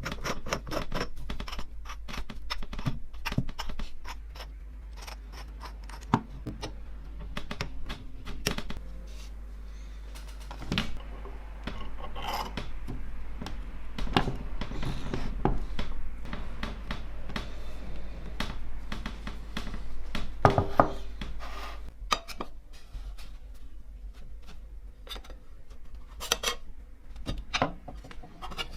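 Small metal parts of a hand drill being handled and worked: a run of clicks and taps with scraping and rubbing between them, and a few louder knocks.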